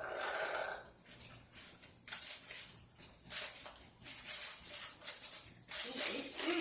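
Drinking from a cup of iced lemon water: a sip lasting under a second, then a scattered run of short clicks and clinks from the ice.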